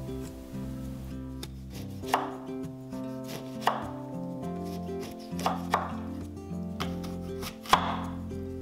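A kitchen knife slicing a lemon and then an apple on a wooden cutting board, with five sharp knocks of the blade against the board, over soft background music.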